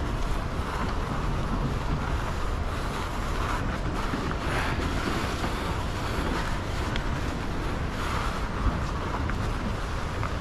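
Wind buffeting the microphone: a steady rushing noise, heaviest in the low end, with a few faint knocks.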